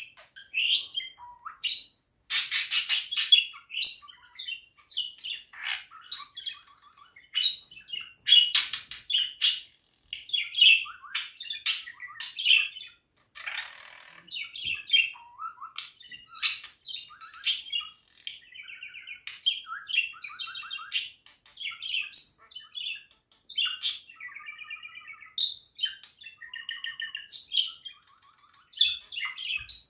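Budgerigar warbling and chattering: a rapid, unbroken run of chirps, clicks and squeaky warbled notes.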